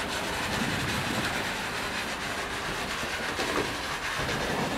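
Tunnel boring machine's cutter head grinding through a weak concrete and fibreglass shaft wall at breakthrough: a steady, noisy grinding rumble with a few faint knocks.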